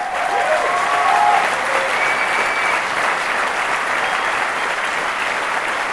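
Audience applauding steadily, with a few voices calling out in the first couple of seconds.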